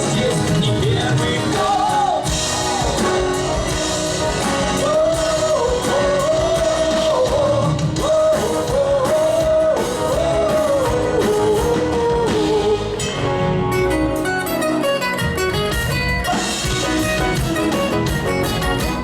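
Live heavy-rock band playing with sung lead vocals over electric guitars and drums; about thirteen seconds in the singing stops and the instruments carry on with a run of quick notes.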